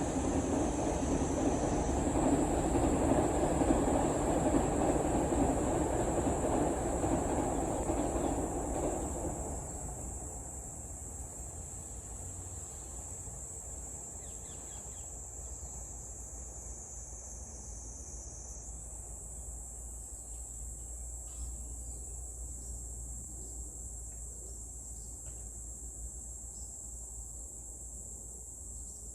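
Cicadas calling in one continuous high, steady buzz. For the first nine seconds or so a passing vehicle's low rumble is louder, then it fades away and the buzz is heard over a quiet background.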